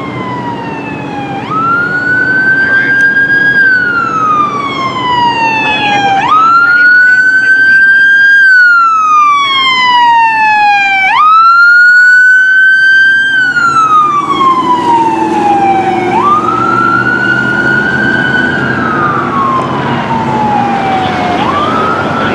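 Emergency vehicle siren in wail mode on a Cal Fire pickup passing by. Each cycle rises quickly and falls slowly, repeating about every five seconds. It is loudest around the middle, then a little fainter as the truck drives away, with engine and road noise underneath.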